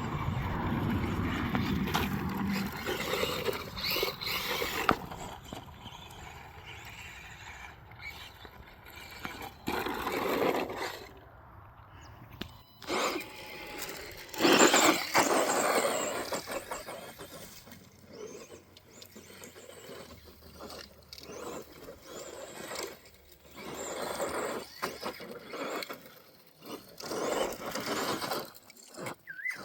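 Electric radio-controlled buggy driving around a dirt track: a high motor-and-gear whine with tyre scrabble, swelling and fading as the car comes near and goes away, with a few short knocks.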